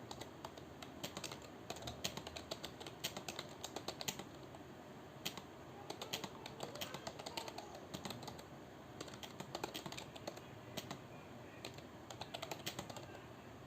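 Computer keyboard being typed on at a moderate, uneven pace: a quiet run of irregular key clicks with a couple of brief pauses.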